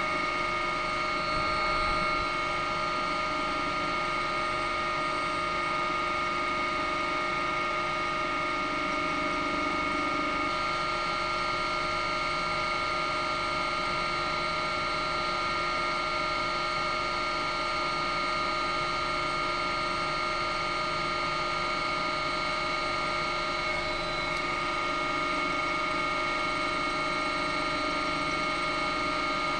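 Helicopter running steadily: a constant engine whine made of several fixed tones, with no change in speed.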